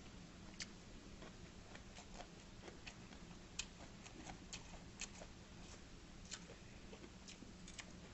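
Quiet eating sounds: scattered faint clicks and taps of chopsticks on dishes and of chewing, over a low steady hum.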